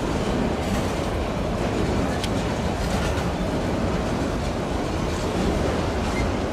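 Freight train of enclosed autorack cars rolling past close by: a steady rumble of steel wheels on the rails, with a couple of sharp clicks about two and three seconds in.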